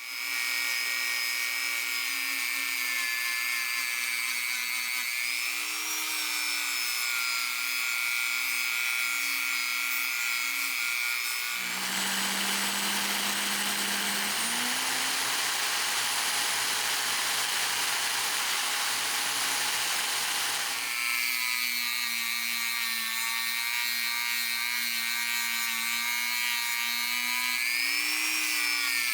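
Small electric motor driving a polishing wheel, running with a steady whine. For about nine seconds in the middle the pitch drops and a rougher, hissier rubbing sound takes over, then the steady whine returns.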